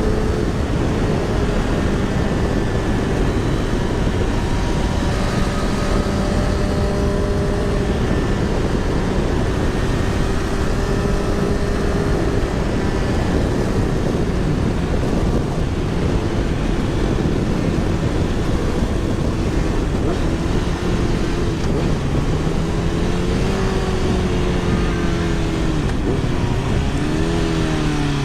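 Steady wind rush on a helmet-mounted microphone while riding a motorcycle, with the engine's hum underneath. In the last few seconds the engine pitch falls and rises several times.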